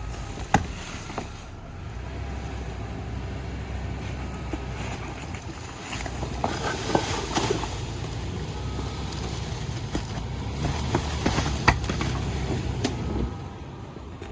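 Vehicle running with a steady low rumble, with a few sharp clicks and knocks over it.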